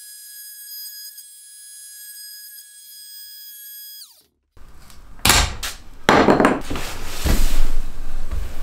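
A steady high whine with overtones slides down in pitch and stops about halfway through. After a short gap, several loud wooden knocks and rubbing follow as plywood and wooden jig parts are handled and set down on a workbench.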